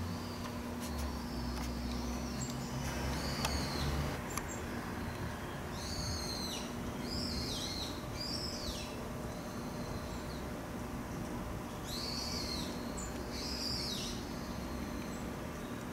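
A bird calling repeatedly with short, loud, down-slurred calls: a cluster about six seconds in and another about twelve seconds in, with a steady low hum underneath.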